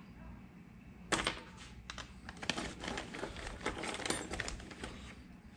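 Small hard objects clicking and rattling as they are handled: a sharp click about a second in, then a quick, irregular patter of clicks that thins out near the end, like rummaging through loose small metal parts.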